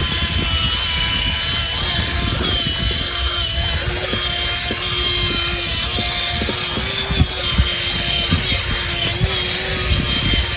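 Small electric motors and gearboxes of radio-controlled model vehicles whining steadily, the pitch shifting slightly now and then, with frequent low knocks and clatter.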